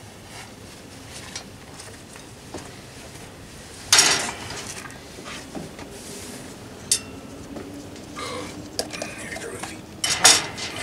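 Cutlery and china plates clinking and clattering at a table during a meal, with the loudest clatter about four seconds in and another burst of clinks near the end as the serving platter is lifted and passed.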